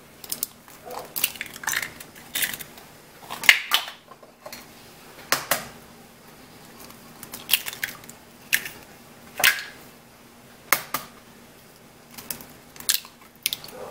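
Eggs being cracked by hand into a mixing bowl: sharp taps and cracks of eggshell against the bowl, coming every second or two.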